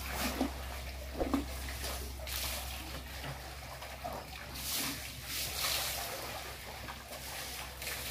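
Water splashing and sloshing in a shallow concrete tank as a bathing elephant stirs and sprays it, coming in hissing spells a few seconds apart over a steady low hum.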